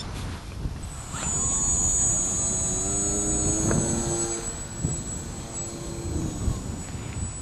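Small electric motor and propeller of an 18-inch foamboard pizza-box-flyer RC plane in flight, with a steady high whine that starts about a second in. A lower droning tone rises and falls in pitch in the middle as the plane flies past, over a low rumble.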